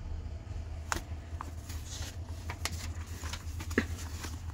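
Paper pages of a thick paperback book being flipped, a run of crisp rustles and snaps, the sharpest near the end. A steady low hum runs underneath.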